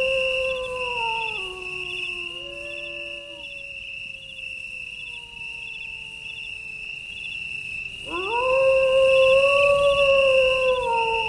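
Long drawn-out canine howls, each rising, holding and then falling in steps, two overlapping near the start and a fresh, louder howl about eight seconds in. Behind them runs a steady high cricket-like chirring with a regular pulse.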